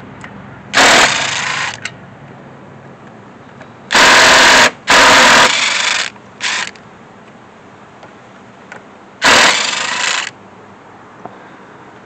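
Ratchet wrench set to reverse, run in five quick bursts of rapid clicking while loosening bolts on an AC compressor being removed.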